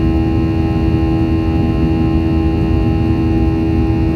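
Boeing 737's jet engines heard inside the cabin in flight: a loud, steady deep rumble with a strong steady hum and several fainter higher tones over it.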